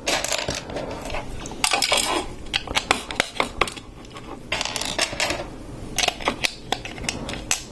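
Hard plastic Lego pieces clicking and clattering as loose bricks are picked over and pressed onto a red raft hull piece: many sharp clicks with a few short spells of rattling.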